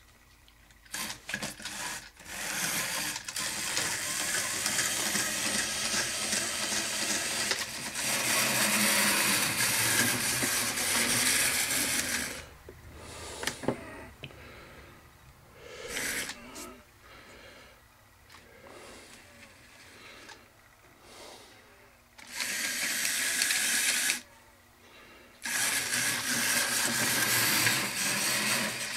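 Bachmann 4-8-4 model steam locomotive running on its track, its electric motor and gears making a mechanical whirring. The whirring is loud for long stretches, drops to a faint sound between, and is loud again near the end, as the engine comes near and goes away.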